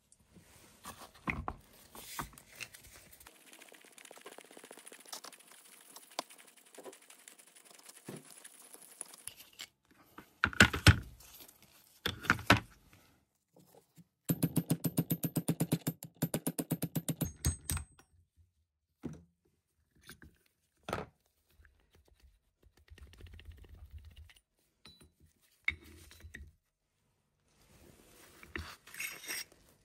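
Metal tool parts of an old pipe cutter being handled: scattered clinks and knocks, two louder knocks about a third of the way in, then a fast, even run of clicks lasting a few seconds, and some softer scraping and rubbing later.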